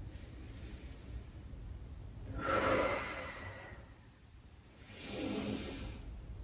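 A man's deep breathing as he holds a seated forward-fold stretch: two audible breaths, the louder about two and a half seconds in and the other about five seconds in.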